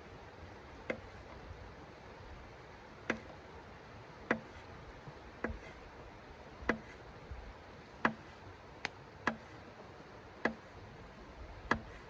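A knife slicing food on a hard tabletop: about ten sharp ticks, one every second or so, each as the blade cuts through a slice and strikes the board.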